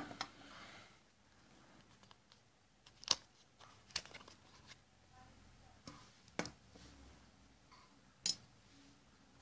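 Handling sounds of a UNI-T UT33C digital multimeter being worked out of its rubber holster: soft rubbing with about five sharp plastic clicks and knocks spread a second or two apart, the loudest about three seconds in.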